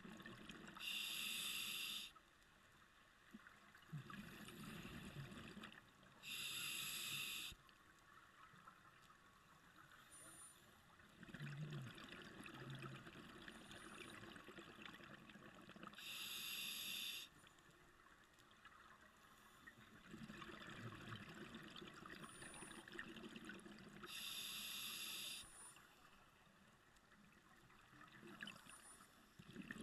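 Scuba diver breathing through a regulator underwater: four inhalations, each a hiss lasting about a second, with the bubbling of exhaled air between them.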